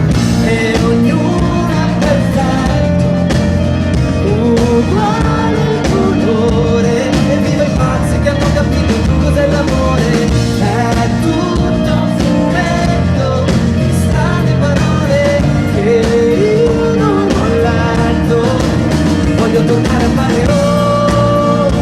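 Live pop-rock band music with a steady beat, with a melodic line that may be singing or a lead instrument.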